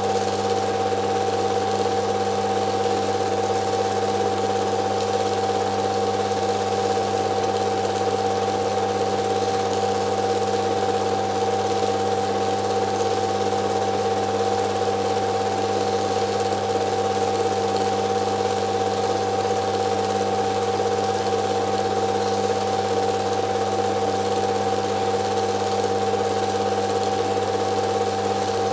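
Film projector running: a steady mechanical whirr with a constant hum that does not change.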